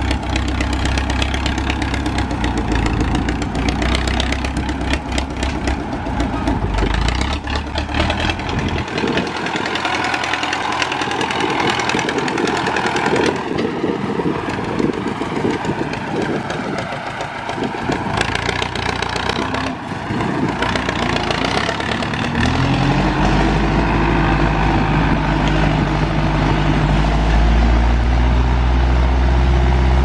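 Belarus MTZ 552 tractor's four-cylinder diesel engine running as the tractor drives past. About three-quarters of the way through, the engine note rises as it revs up and pulls the trailed sprayer away under load, then holds loud and steady.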